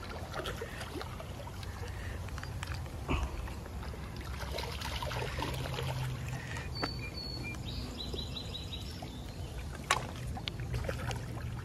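A snagged shad splashing and thrashing at the water's surface on the end of a spinning line, with water sloshing against the shoreline rocks. A few sharp splashes stand out among the steady slosh.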